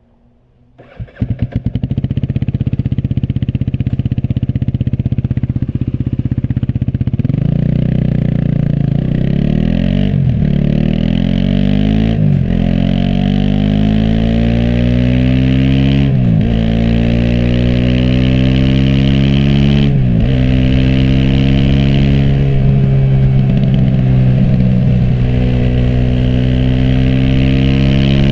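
Aprilia SX 125 single-cylinder engine with an Arrow exhaust starting about a second in and idling. From about seven seconds it revs up through the gears, the pitch climbing and dropping sharply at each of four upshifts, then settles to a steady cruise.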